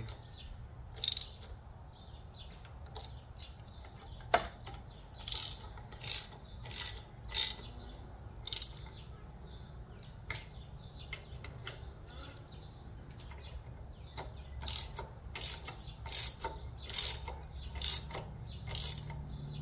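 Hand ratchet clicking as air cleaner bolts are tightened down: scattered single clicks, a short run of four in the first half, and a longer run of about two clicks a second near the end.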